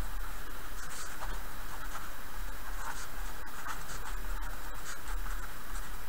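Pen scratching on paper as words are handwritten in a run of short strokes, over a steady low hum.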